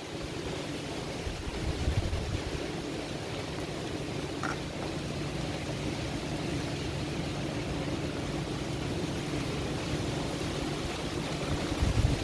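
Heavy rain and wind of a severe thunderstorm, a steady hiss, with gusts buffeting the microphone about two seconds in and again near the end.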